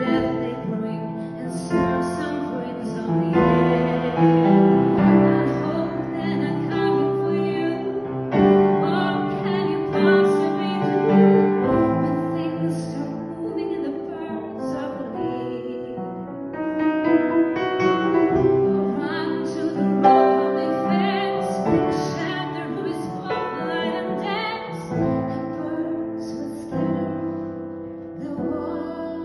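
Piano playing with a woman's singing voice holding long, wavering notes over it.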